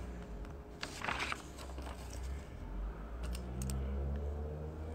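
Low steady hum with a brief rustle about a second in and a few faint clicks a little past the middle.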